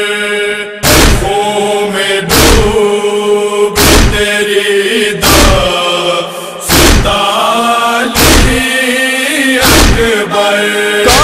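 Noha recitation: voices chanting in long held notes, cut by heavy rhythmic thuds about every one and a half seconds. The thuds are the beat of matam (chest-beating) that keeps time in a Shia lament.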